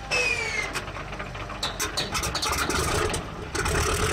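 Antonov An-2's Shvetsov nine-cylinder air-cooled radial engine being started by its inertia starter. A whine falls in pitch as the spun-up flywheel is released, the engine fires unevenly with sharp pops, and at about three and a half seconds in it catches and runs steadily.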